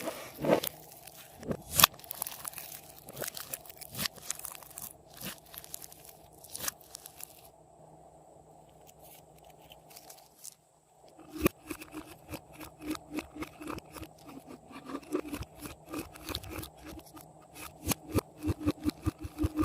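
Hands squishing and stretching slime, making sticky clicking and crackling pops. After a quieter stretch about halfway through, the pops come in a quick, even run, several a second, as the slime is kneaded.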